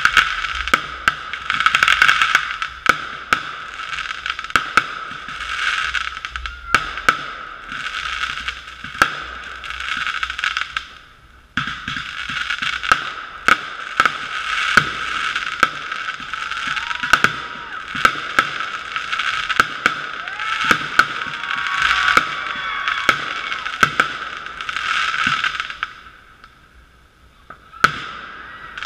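Fireworks going off in quick succession: a string of sharp bangs with hissing crackle between them, pausing briefly twice. The sound is muffled and thin because it is recorded through a GoPro's sealed waterproof housing.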